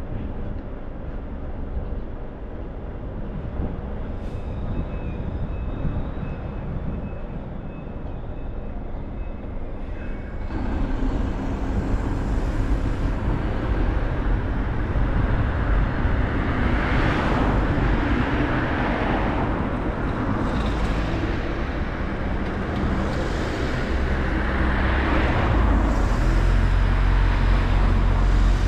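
Car driving along a road: steady road and tyre noise with the engine underneath. The noise steps up about a third of the way in, three short whooshing swells follow, like vehicles passing close by, and a deeper rumble builds near the end.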